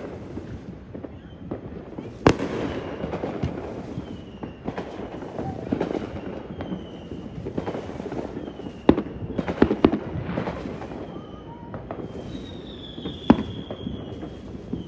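Fireworks going off: a steady crackle of fizzing and popping, broken by four sharp bangs, the loudest near the end. Short, slightly falling high whistles recur throughout.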